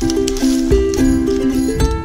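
Background music starting abruptly: plucked-string chords over a low beat that thumps about once a second.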